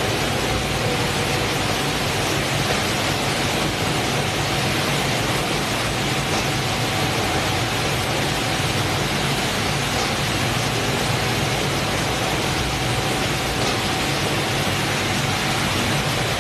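Steady machinery din of a shipboard fish-processing line: conveyors and processing machines running with a constant low hum and a faint steady whine.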